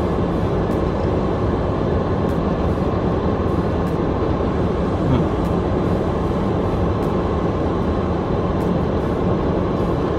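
Steady rushing noise inside the cabin of a car that is running while parked.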